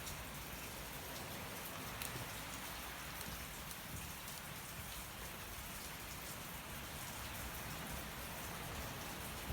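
Steady rain falling, with a wood fire burning and giving a faint crackle about two seconds in and again near the end.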